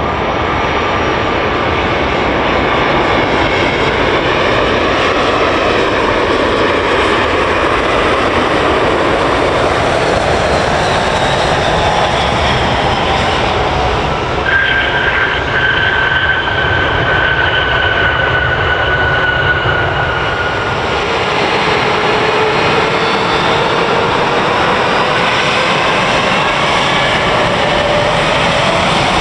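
Airliner engines running loud and steady, with whining tones that glide in pitch. A high whine comes in about halfway through and slowly falls.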